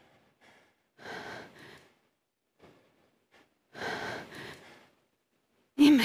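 A woman crying: shaky, breathy sobbing gasps, two longer ones about a second and four seconds in, with small catches of breath between. A loud, tearful voice breaks in near the end.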